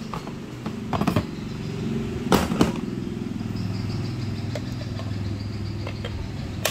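Steel wire beaters of a hand mixer being handled: a few sharp metal clinks about a second in and again around two and a half seconds as they are lifted from the cardboard box, then light ticks and a click near the end as a beater is pushed into the mixer's socket, over a steady low hum.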